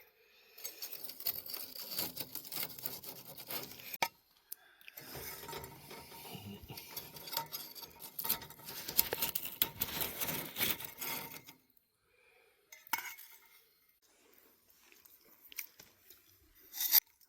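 Tableware clinking and scraping, as with utensils on dishes during a meal, in two long busy stretches, then a few scattered clinks near the end.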